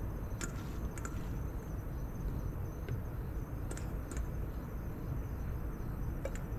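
Night insects trilling steadily, a high, fast-pulsing chirr, over a low steady rumble. A few light clicks and clinks come as salad is tipped from a stainless steel bowl onto a plate.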